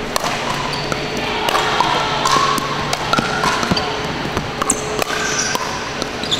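Pickleball rally: paddles hitting a hollow plastic ball in quick exchanges, a fast, irregular series of sharp pocks about every half second, with voices in the background.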